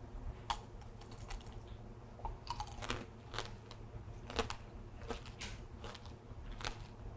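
Crunching and chewing of shine muscat grape tanghulu, the hard candied sugar shell cracking between the teeth in a string of irregular sharp crunches.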